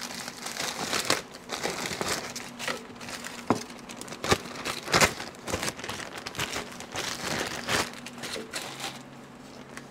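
Clear plastic zip-lock bag crinkling and crackling as it is handled and pulled away from a crankshaft, with a few sharper clicks among the rustle; it dies away about nine seconds in.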